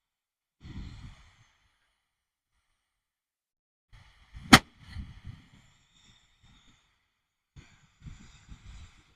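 A 500-gram firework fountain (Venom's "Everything But The Kitchen Sink") spraying and crackling in spurts, with one sharp, loud bang about four and a half seconds in.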